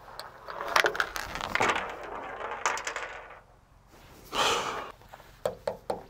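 Clicks, knocks and scraping as a metal roof-rack mounting bracket is handled and fitted over bolts through a car roof, with a louder scrape about four and a half seconds in and a few sharp clicks near the end.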